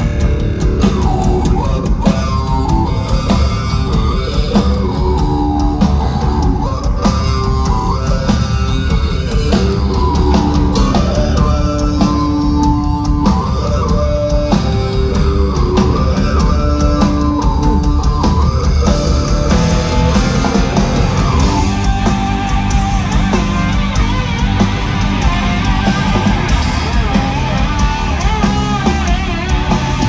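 Hard rock band playing live at full volume, heard from the audience: electric guitars, bass and a drum kit. About twenty seconds in, the music shifts to a busier, brighter guitar section.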